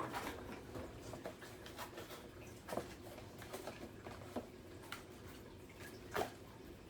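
Faint, scattered clicks and taps of small plastic playset pieces being handled and set down on a table, with a few louder taps in the middle and near the end.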